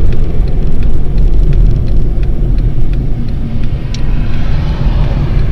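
Steady low rumble of a car driving, heard from inside the cabin: road and engine noise, easing slightly in the second half.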